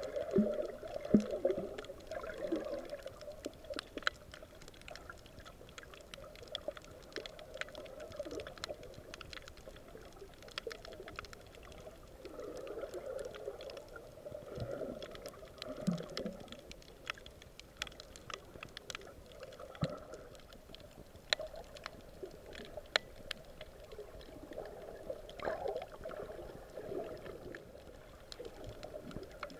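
Underwater ambience picked up by a camera held below the surface: water sloshing and gurgling in slow swells, with scattered sharp clicks and crackles throughout.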